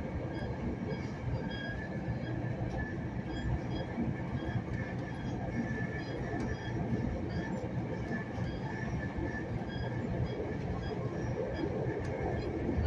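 Steady rumble of a Metrolink commuter rail car rolling along the track at speed, heard from inside the car, with a faint steady high whine over it.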